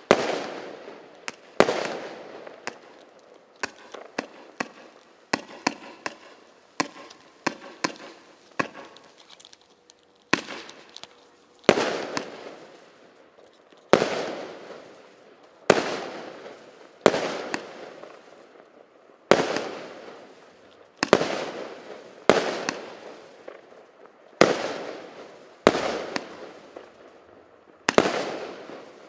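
169-shot, 0.8-inch firework cake firing. For about the first ten seconds it lets off a quick run of smaller bangs and crackles. After that come big shell bursts about every one and a half to two seconds, each trailing off in a long echoing tail.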